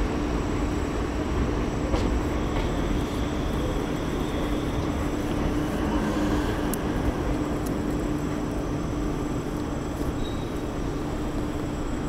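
South Western Railway electric multiple-unit train moving along the platform, with a steady hum over running noise.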